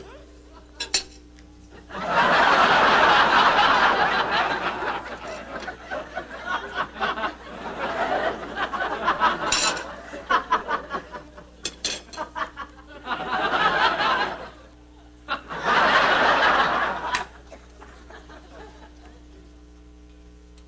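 Studio audience laughing in four waves, the first and loudest about two seconds in, with a few light clinks of tableware between them.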